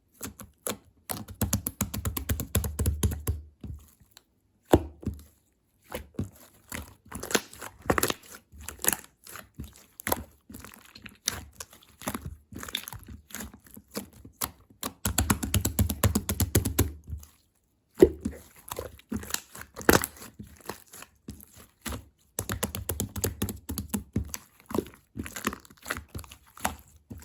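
Slime being squished and worked by hand, giving bursts of many small crackling, popping clicks with short pauses between handfuls.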